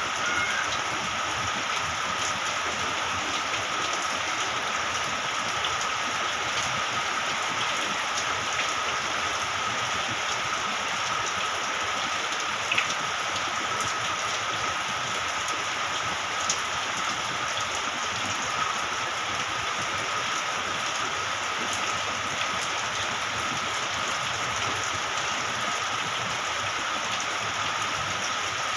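Steady rain falling and pattering on surfaces, with a few louder single drops standing out. A faint steady high tone runs underneath.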